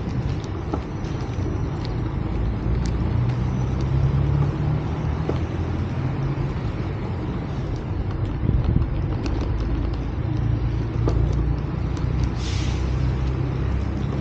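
Road traffic rumbling steadily, with a short hiss about twelve seconds in.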